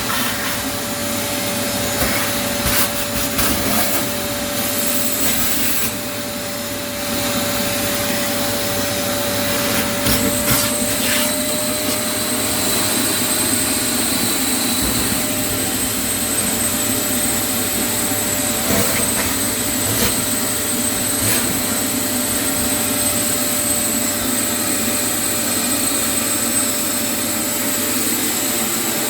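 Motorised cleaning machine running steadily with a constant whine, and scattered knocks and clatters in roughly the first ten seconds.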